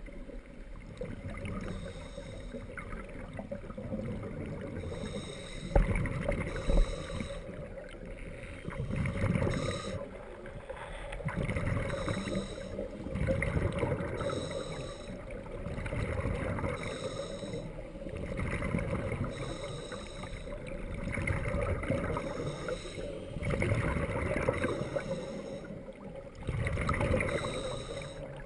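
Scuba diver breathing through a regulator underwater: a hiss on each inhale and a low bubbling rumble of exhaled bubbles on each exhale, one breath about every two and a half seconds. Two sharp knocks about six seconds in.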